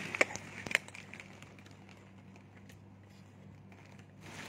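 Two sharp knocks about half a second apart within the first second, over a faint, steady low hum.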